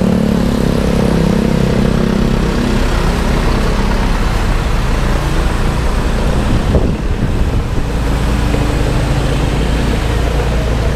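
Motorcycle engine running at low speed in heavy traffic: a steady low hum under a constant rush of road and traffic noise, dipping briefly about two-thirds of the way through.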